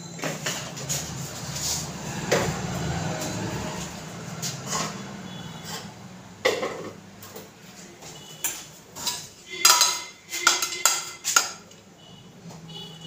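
Kitchen utensils and dishes clinking and knocking irregularly, a few strokes at first and then a quicker cluster of sharp clinks in the second half.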